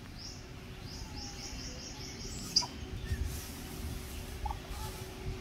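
A bird calling a quick series of short, high, rising notes in the first half, over a low rumble. A single sharp click about two and a half seconds in is the loudest sound.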